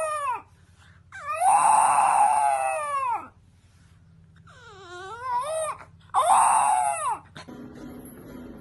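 An animal's drawn-out wailing cries, four of them with short silences between: the first trails off at the start, a long one lasts about two seconds, a third wavers up and down, and a shorter one comes near the end. Most fall in pitch as they end.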